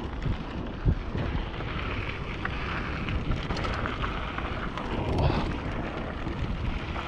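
Wind rushing over an action camera's microphone and mountain bike tyres rolling over a dry dirt trail, with a sharp knock about a second in and a few lighter ones as the bike rides over bumps.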